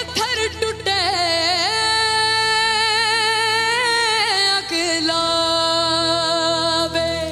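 A solo singer holds long, ornamented notes with vibrato over steady instrumental backing, breaking between the two held notes about two-thirds of the way through.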